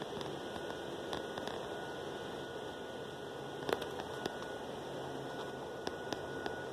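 Steady outdoor background hiss picked up by a phone microphone, with a faint steady high tone and a few light clicks of handling, about four seconds in and near the end.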